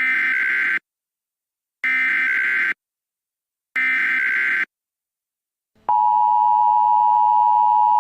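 Emergency Alert System SAME header: three identical bursts of high, screechy data tones, each just under a second long and about two seconds apart, marking the start of an alert. About six seconds in, a steady attention tone starts and holds.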